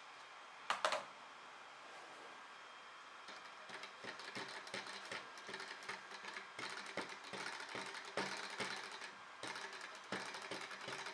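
Small hot-air Stirling engine with a glass displacer tube, heated by a tealight, starting to run: its piston and flywheel linkage clatter in a fast, uneven rhythm that sets in about three seconds in and grows louder. A single sharp knock sounds about a second in.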